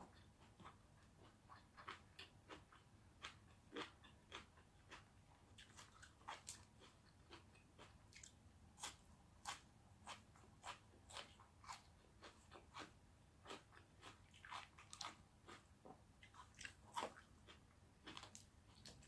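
A person biting and chewing crunchy food: an irregular run of crisp crunches, about one or two a second.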